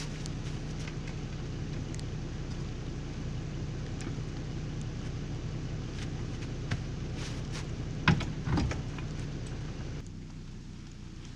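Pickup truck engine idling steadily while a utility trailer is hooked to its hitch: scattered metal clicks and clanks, with two loud knocks about eight seconds in. The idle drops away near the end, leaving quieter outdoor sound.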